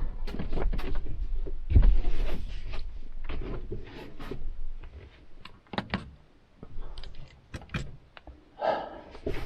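A string of irregular knocks, clicks and low thumps of things being moved and handled inside a van.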